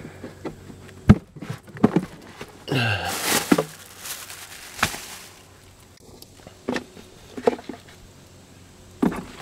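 Rustling and handling noise inside a car, with several sharp clicks and knocks as things are moved about, and a short falling sound with a noisy rush about three seconds in.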